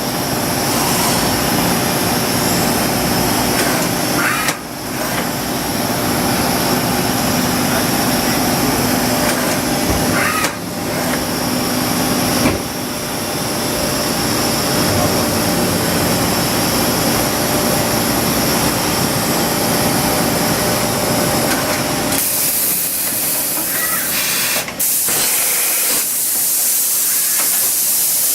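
Mazak H-400N CNC horizontal machining center running, a steady machine hum with a high whine and hiss, briefly interrupted a few times. About 22 seconds in, the low hum drops away and a loud hissing spray takes over.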